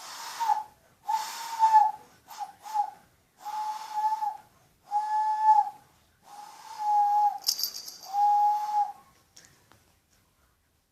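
Hand owl call: breath blown across cupped hands, giving a series of about seven breathy hoots at one steady pitch, a few short and most about a second long, with short gaps between.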